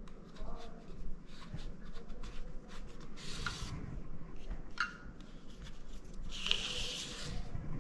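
Handling noise of a cable and heat-shrink tubing: rubbing and light clicks as the tube is slid along the cable, with two short scraping hisses about three and six and a half seconds in.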